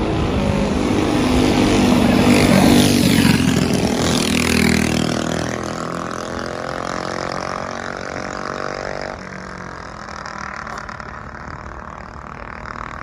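A motor vehicle engine revving loudly, its pitch rising and falling over the first few seconds, then settling into a steady drone that drops off about nine seconds in, leaving quieter traffic noise.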